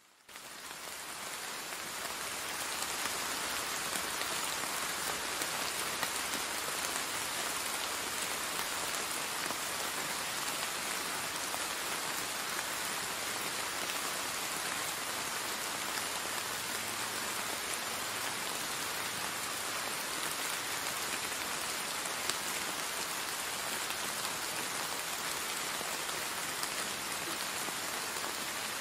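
Steady rain falling on wet brick paving and garden plants, a dense even patter that fades in over the first two or three seconds, then holds level.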